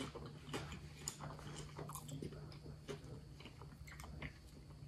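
Faint close-up chewing of a mouthful of sushi roll: many small, irregular mouth clicks, over a steady low hum.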